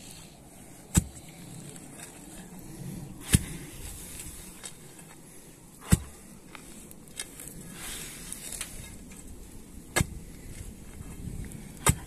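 Steel digging bar rammed down into hard ground to open a fence-post hole: five sharp strikes a couple of seconds apart.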